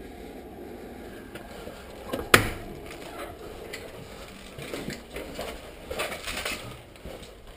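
Scraping, shuffling movement noise with one sharp click about two seconds in, and more rustling and scuffing near the end.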